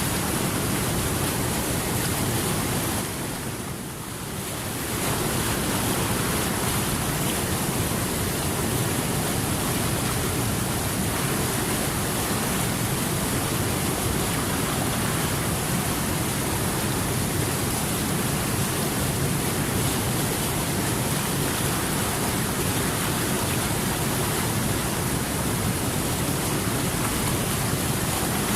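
Steady rushing water, an even hiss spread from low to high, briefly quieter for a moment about four seconds in.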